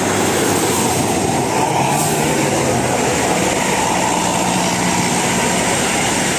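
A bus engine running, a loud, steady noise with a faint low hum in the middle; no telolet horn tune is sounding.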